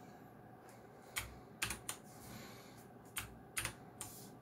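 Keys being pressed on a Geekstar x Deck Hassium Pro 108 mechanical keyboard with clicky blue switches: a scattering of separate sharp clicks in small irregular clusters, starting about a second in.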